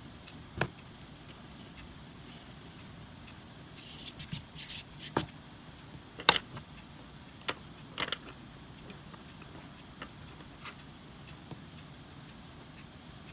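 Coloured pencils and paper being handled: sharp clicks and taps of pencils, the loudest about six seconds in, with a cluster of short scratchy rustles around four to five seconds in.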